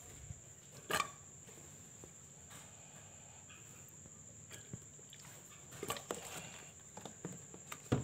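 Faint clicks and knocks of a plastic crate and its feeder cups being handled, with one sharper click about a second in and a cluster of small taps near the end, over a steady high-pitched insect chirr.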